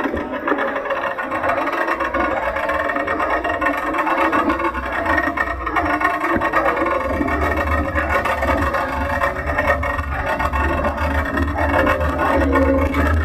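Wind rumbling on the microphone of a handlebar-mounted camera while riding a bicycle, with music playing underneath.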